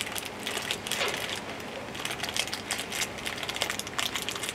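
Irregular crackling and clicking of snack packaging being handled and crinkled.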